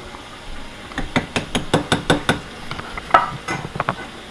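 Metal ladle clinking against the side of a large metal stockpot of soup: a quick run of sharp clinks about a second in, then a few more, one ringing briefly, near the end.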